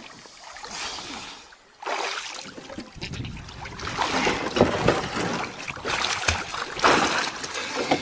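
River water splashing and sloshing in uneven bursts around a person swimming in it, with a short lull about a second and a half in.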